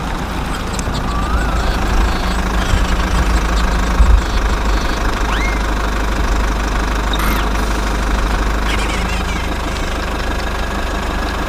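Steady engine rumble with a knocking quality, briefly louder about four seconds in. A few short rising and falling squeaks or chirps sound over it.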